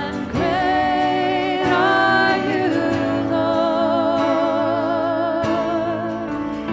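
Worship song: a singer holds long notes with vibrato over a steady instrumental accompaniment.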